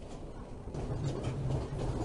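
Passenger train running on the rails, heard from inside the carriage, with continuous rail and wheel noise. A steady low drone comes in under it a little under a second in.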